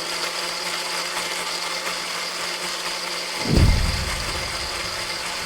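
Small electric blender running steadily, blending chopped carrot, apple and cucumber for a smoothie. About three and a half seconds in, a brief deeper, louder rumble rises and fades.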